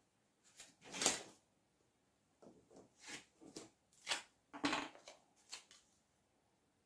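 Faint handling noises: a series of short clicks and rustles as hands work a green EVA foam leaf on floral wire and uncap a bottle of instant glue on a wooden work board.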